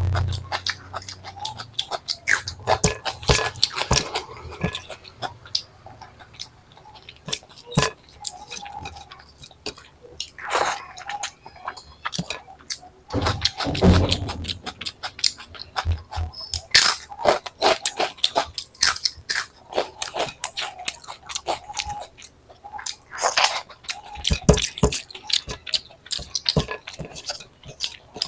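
Close-miked eating sounds: wet chewing of rice and egg curry, mixed with many irregular crisp crunches of potato chips and mouth smacks.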